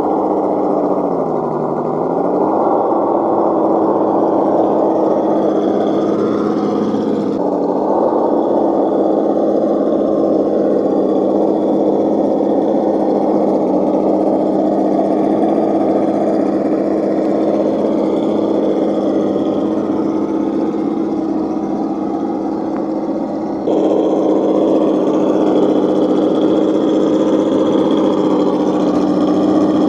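Electric motor and gear drivetrain of a radio-controlled scale crawler truck whining steadily as it drives. The pitch sags briefly about a second in, and the sound changes abruptly twice.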